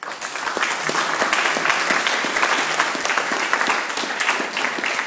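A small roomful of people applauding, a dense patter of many hands clapping that starts abruptly and eases slightly near the end.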